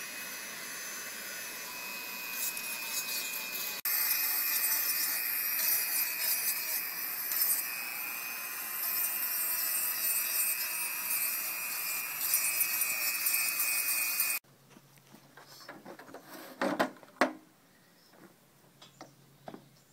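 Dremel rotary tool grinding the rough edges of a plywood saw handle to round them off: a steady high motor whine with a gritty rasp of the bit on the wood, cutting off suddenly about 14 seconds in. A few light knocks follow.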